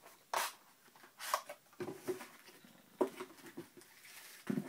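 Handling noise from a Benchmade knife box being opened: the cardboard box slid open and its plastic tray pulled out, a handful of short scrapes and clicks.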